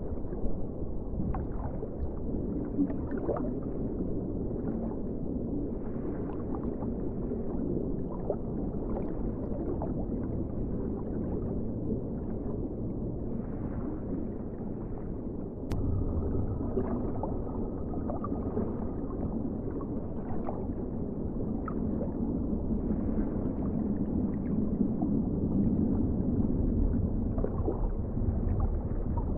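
Underwater ocean ambience: a muffled low rumble with gurgling and faint crackles. About halfway through there is a sharp click, and the rumble gets louder after it.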